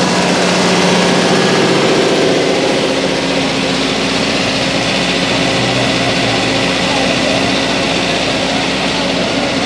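An engine running steadily at idle, a continuous hum with several steady tones over a dense background noise.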